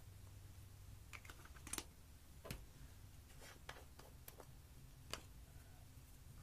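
Sparse light clicks and taps from fingers handling a small plastic jar of chunky silver glitter, about seven in all at uneven intervals, over faint room tone.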